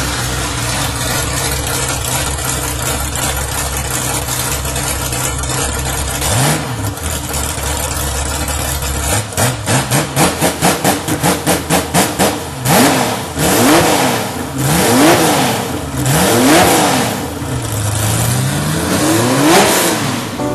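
Ferrari 365 GT 2+2's V12 engine idling steadily, then revved: one short blip, a quick run of throttle stabs several times a second, then about five longer revs, each climbing and falling back.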